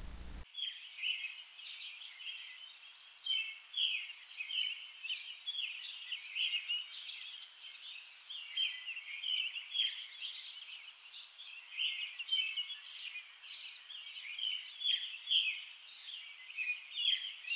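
Birds chirping and singing, a continuous run of many short, overlapping calls that starts about half a second in.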